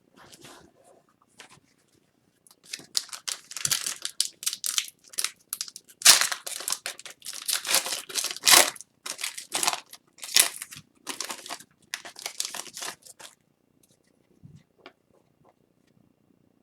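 Foil wrapper of a hockey card pack being torn open and crinkled: a run of sharp rips and crackles lasting about ten seconds, loudest about halfway through.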